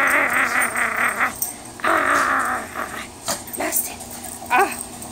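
Pekingese growling while tugging and shaking a fabric toy, in two rasping bouts: one at the start lasting about a second, another about two seconds in.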